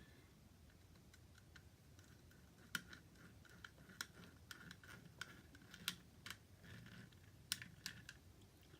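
Faint, irregular small clicks and taps from the wires and the plastic dimmer switch being handled as the wires are pushed into its terminals. The clicks start about a third of the way in and come several to the second.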